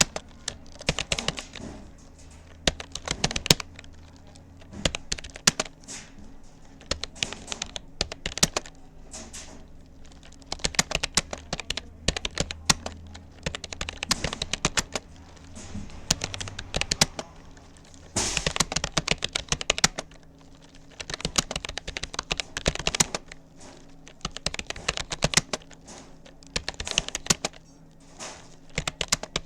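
Typing on a Rapoo computer keyboard at about 40 words a minute: quick runs of key clicks with brief pauses between them.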